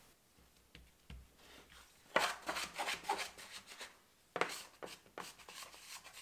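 Hands and a plastic bench scraper working a strip of bread dough on a countertop: a few light taps, then two spells of rubbing and scraping strokes.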